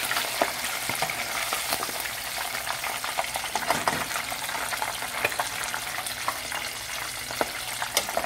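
Braised adobo chicken wings deep-frying in a pot of hot oil, browned briefly to golden: a steady sizzle with many short, sharp crackles scattered through it.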